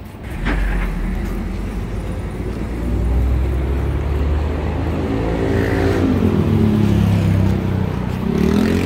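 A motor vehicle's engine running loud and close, with a low rumble that starts a fraction of a second in; its pitch dips about two-thirds of the way through, then climbs again near the end as it revs.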